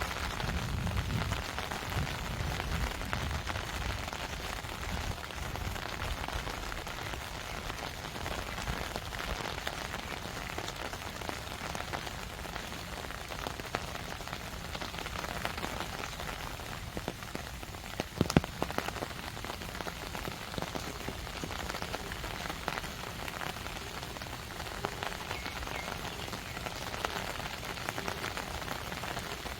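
Steady rain falling, a dense patter of drops hitting surfaces, with a low rumble under it in the first few seconds. A louder, sharp clatter of hits comes about 18 seconds in.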